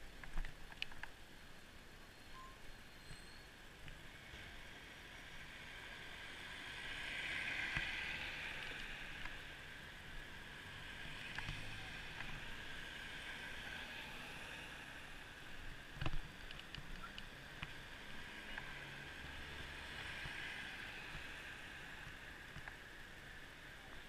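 Muffled road traffic: vehicles passing and coming up to the junction, the hiss swelling and fading a few times, with one sharp knock about two-thirds of the way through.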